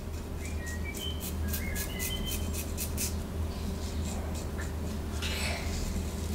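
Merkur 33C double-edge safety razor scraping through lathered stubble on the scalp: a quick run of short crackling strokes, then a pause and one longer stroke near the end.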